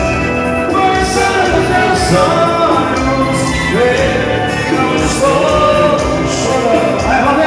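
Live band music: a melodic lead line over a steady beat, loud and continuous.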